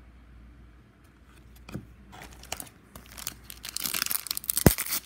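Foil hockey card pack wrapper crinkling and tearing as it is handled and opened, starting about three seconds in after a few light clicks, with one sharp thump near the end.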